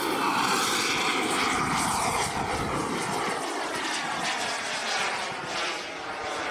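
Turbine engine of a large radio-controlled F-16 model jet, a loud jet roar and whine as it makes a fast low pass and climbs away. Its pitch slides steadily down as it goes.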